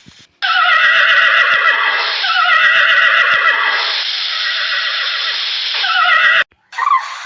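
Horse whinnying: a run of loud, wavering neighs lasting about six seconds that cuts off abruptly near the end.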